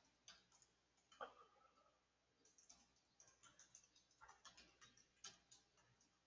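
Faint keystrokes on a computer keyboard, typed in quick runs with short pauses, one click about a second in louder than the rest.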